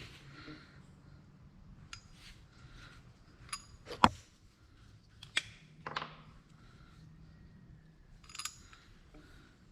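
Scattered metallic clinks and taps as hydraulic hose fittings and hand tools are handled, with one sharp, loud clink about four seconds in and a few softer ones after it.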